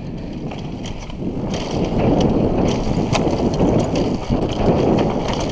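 Mountain bike riding down a rocky dirt trail: tyres rolling over dirt and stones, with scattered knocks and rattles from the bike, getting louder about two seconds in as the speed picks up. Wind rushes over the helmet camera's microphone.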